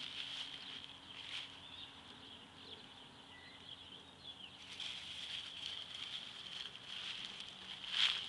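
Feet and a dog's paws rustling and crunching through dry fallen leaves and grass, with a louder crunch near the end, over a steady high-pitched hiss.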